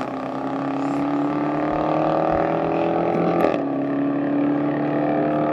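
A car engine under acceleration as a car drives off, its note climbing slowly, then dropping back once about three and a half seconds in at an upshift before climbing again.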